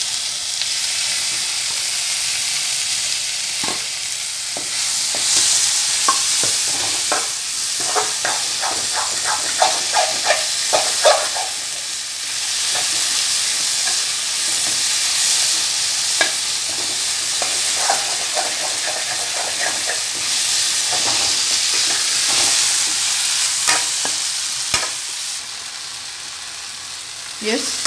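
Chopped tomatoes sizzling in hot oil with prawns and masala in a metal kadai, while a metal spatula scrapes and stirs against the pan. The strokes come thick and fast between about six and twelve seconds in.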